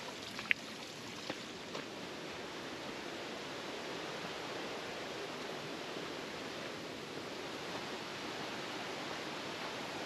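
Steady rush of a forest stream's running water, with a few faint clicks in the first two seconds.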